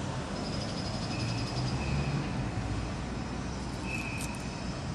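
Low steady rumble of outdoor background noise, with a few faint short high tones.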